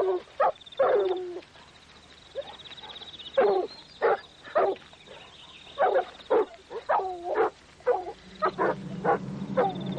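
A dog barking repeatedly, in short irregular barks, over a faint high thin trill; a low steady hum comes in near the end.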